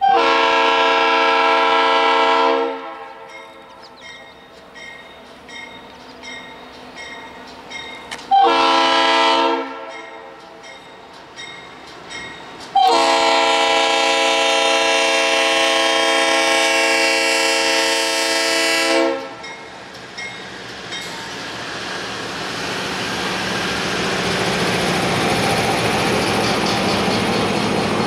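Diesel locomotive air horn sounding a chord of several tones in three blasts: long, short, then long again, the closing part of a grade-crossing signal. After that the train's wheel and car noise builds up and stays loud as it rolls past.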